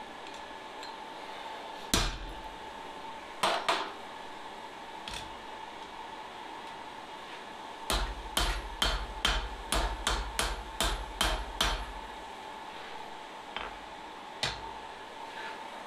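Blacksmith's hand hammer striking a red-hot steel bar on the anvil. A few separate blows come first, then a run of about eleven quick blows at roughly three a second, then a few lighter taps near the end.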